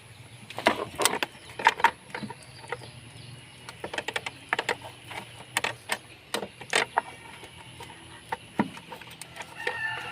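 Irregular metallic clicks, clinks and knocks of hand tools being worked, such as a ratchet or screwdriver on fasteners, over a low steady hum. A rooster starts crowing near the end.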